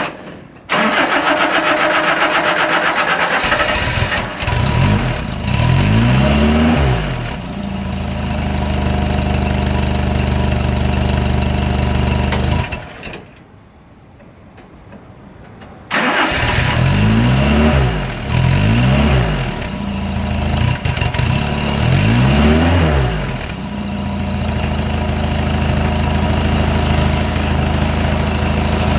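1976 Chrysler GD Galant four-cylinder engine on a cold start, heard at the exhaust tailpipe: it is cranked and catches, revs up and down a few times, then settles to a steady idle. About thirteen seconds in it cuts out. Some three seconds later it starts again, is revved several more times and idles steadily.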